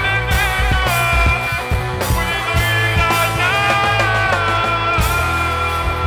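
Rock band playing: drums, bass and electric guitar, with a long held melody line gliding over them.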